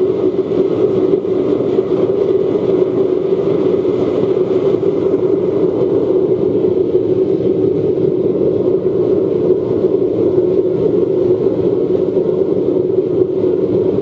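Barrel-type waste oil burner burning in its lighting-up stage on bike fuel and newspaper, with air forced in through a pipe by a 12-volt bilge blower: a loud, steady rush of flame and air with a steady hum.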